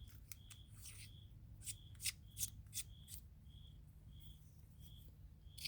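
Faint handling of a titanium EDC pen: light clicks and rubbing as it is turned over and worked in the hands, with a few sharper clicks clustered around the middle. A faint high chirp repeats about twice a second behind it.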